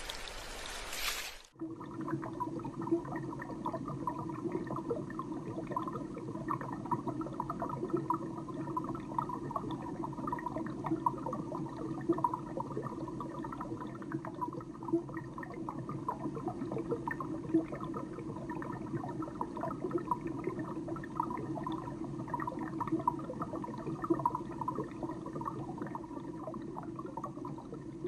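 Water pouring for about a second and a half, then a sudden cut to a steady, muffled underwater sound full of small bubbling pops.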